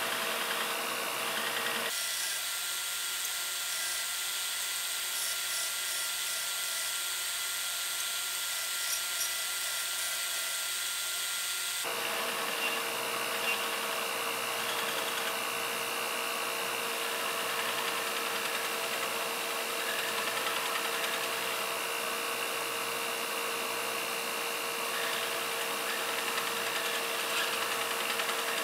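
Belt grinder running with a steel part pressed against the abrasive belt at the contact wheel, grinding it steadily and throwing sparks. The sound shifts abruptly about two seconds in and again about twelve seconds in.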